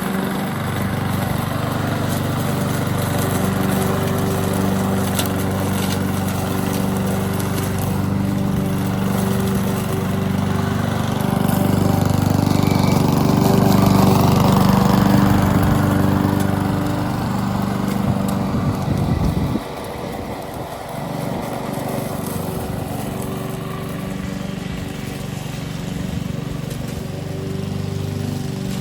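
Honda 21-inch walk-behind lawn mower's engine running steadily under load as it picks up fallen leaves, with a slight drop in level about twenty seconds in.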